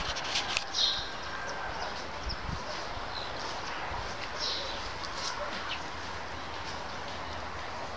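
Outdoor ambience with a steady faint noise and a few short, high animal calls, about a second in and again at around four and a half seconds. A few clicks near the start.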